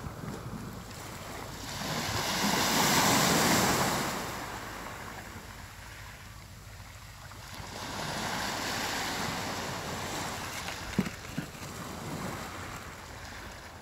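Sea waves breaking on the shore: a loud wash that swells up about two seconds in and fades, then a softer second wave a few seconds later. A couple of brief clicks near the end.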